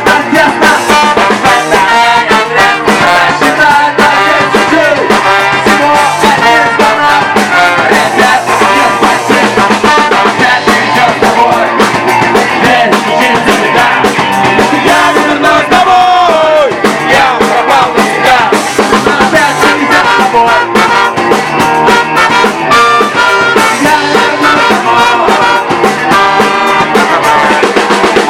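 A band playing an upbeat ska-rock song live, in an acoustic arrangement.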